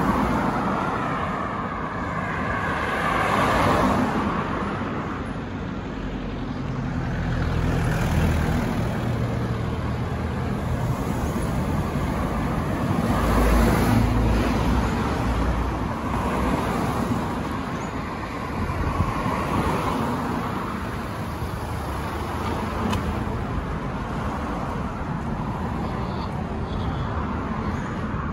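Road traffic on a busy main road: cars passing one after another in repeated swells, with a deep engine rumble about halfway through.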